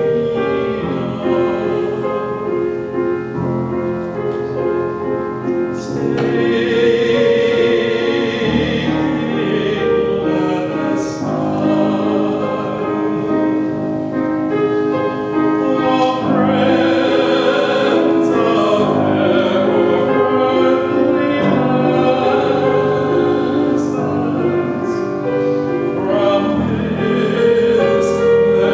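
Church choir singing with piano accompaniment; the singing grows fuller about six seconds in.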